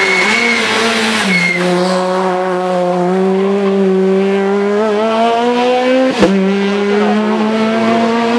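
Rally car's small petrol engine accelerating hard under full throttle, its pitch climbing steadily through the gears with an upshift about a second in and another near six seconds, marked by a sharp click. A high tyre squeal stops about a second and a half in.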